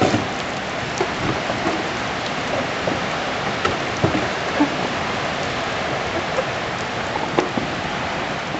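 Steady hiss of falling water, like heavy rain, with a few light knocks.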